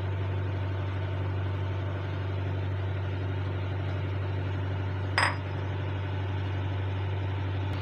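A steady low hum runs throughout. About five seconds in comes a single sharp clink: a ceramic bowl tapping the rim of the metal cooking pan.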